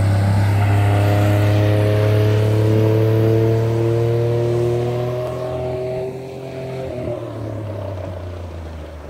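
40 hp Mariner four-stroke outboard motor running under power as the boat accelerates away, its pitch rising slowly. It fades steadily as the boat draws off, from about four seconds in.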